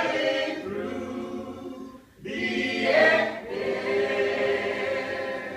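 A small group of voices singing a gospel hymn in harmony, the closing lines of the song. They sing two long held phrases with a short break about two seconds in.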